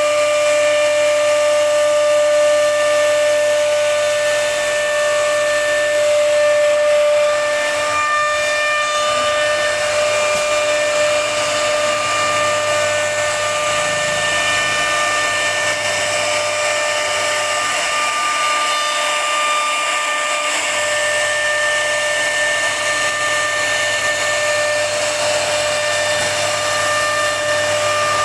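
CNC router spindle with its bit cutting grooves into a solid wood door panel: a steady whine over the noise of the wood being cut.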